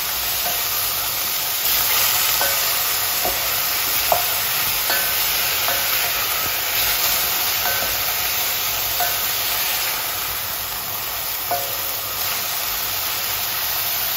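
Sliced red pepper, mushrooms and red onion frying in a stainless steel pot with a steady sizzle, stirred with a wooden spatula that knocks and scrapes against the pot now and then, loudest about four seconds in.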